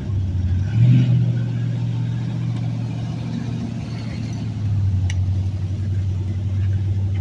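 Off-road vehicle engine running at low revs, with a short rev about a second in and a sharp click about five seconds in.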